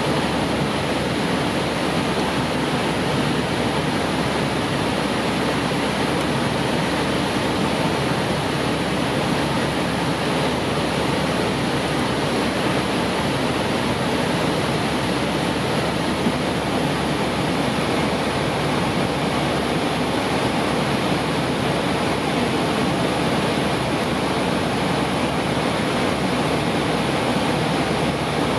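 Steady rushing airflow noise on an airliner's flight deck in cruise, even and unchanging throughout.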